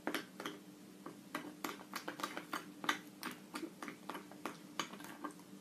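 A spoon stirring a thick chocolate mixture in a glass bowl, clinking lightly against the glass about three times a second in an uneven rhythm, over a faint steady hum.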